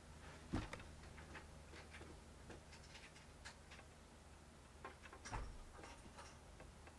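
Quiet room with a low steady hum and scattered light clicks and taps, with two louder soft knocks about half a second in and about five seconds in.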